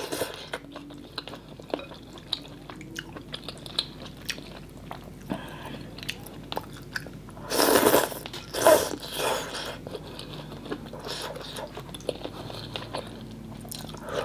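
A person chewing mouthfuls of mì Quảng noodles, with many small wet mouth clicks. Two louder slurps of noodles come a little past the middle.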